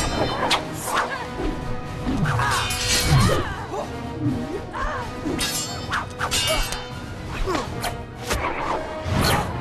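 Film sword-fight soundtrack: dramatic music under repeated sharp hits of sword blows striking a shield or blade, with the loudest clashes near the start, about three seconds in, and near the end.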